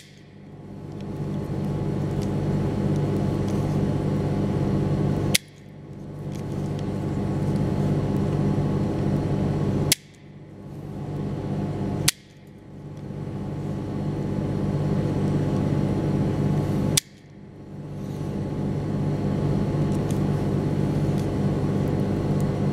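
Automatic wire stripper snapping shut five times as it strips insulation from the ends of thin cable cores. Each snap is sharp and short, a few seconds apart, over a steady low hum.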